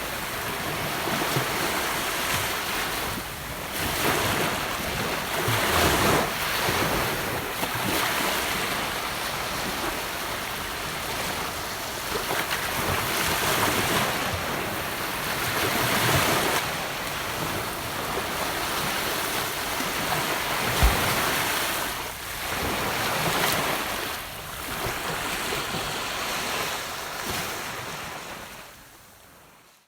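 Gentle ocean waves washing onto a beach: a steady hiss of surf that swells and eases every few seconds, fading out near the end.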